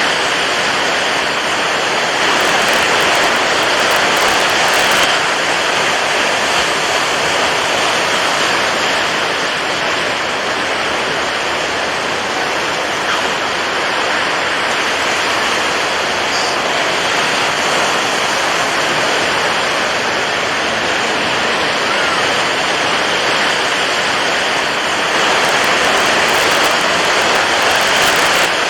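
Water waves washing continuously: a steady rushing noise, swelling slightly a few seconds in and again near the end.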